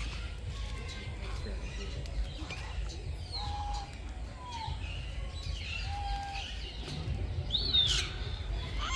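Birds calling: scattered short whistles and chirps, with a louder call that rises and falls near the end, over a steady low rumble.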